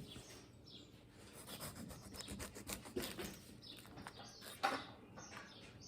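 Faint rubbing and scraping with scattered light clicks and a soft knock a little before the end, as of something being handled close to the microphone.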